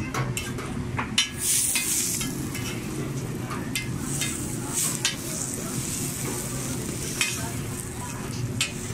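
Egg bun kababs sizzling on a hot flat-top griddle, with a metal spatula scraping and clacking against the plate now and then as the sandwiches are lifted and turned; the loudest clack comes about a second in.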